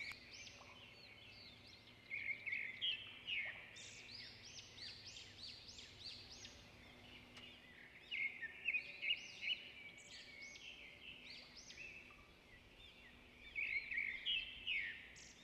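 Wild birds singing: bouts of quick, high, arching chirps, repeated over and over.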